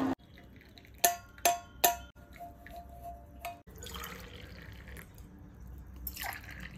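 Cups or glassware clinking three times in quick succession about a second in, each strike ringing briefly, followed later by softer liquid sounds of tea being poured.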